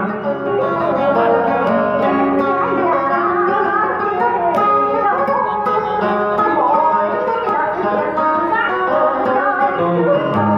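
A woman singing into a microphone over amplified instrumental backing with plucked strings.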